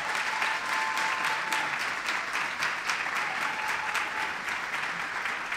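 Audience applauding: dense, steady clapping from a large seated crowd, easing off a little near the end. A thin held tone sounds over the first couple of seconds.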